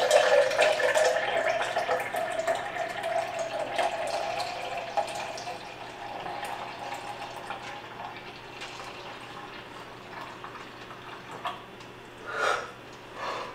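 Kitchen tap running water into a steel sink with a steady splashing that carries a faint tone. It is loudest at first and fades gradually over the next several seconds. Two short sounds come near the end.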